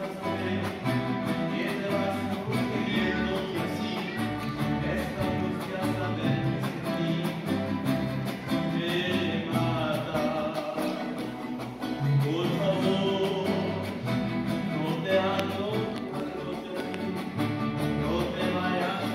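Live mariachi band playing: violins and guitars over a rhythmic plucked bass line.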